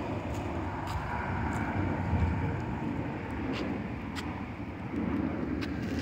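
Steady low rumble of distant engine noise, with a faint steady tone over the first couple of seconds and a few light clicks.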